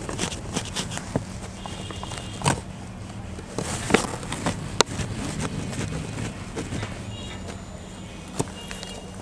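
Whiteboard eraser rubbing across a whiteboard as the written working is wiped off, with a few sharp knocks in between.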